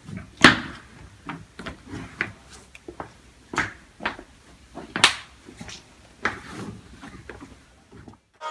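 Irregular knocks, shuffles and rustles in a small echoing room as a person moves about and gathers towels off a concrete floor, with two louder knocks about half a second in and about five seconds in.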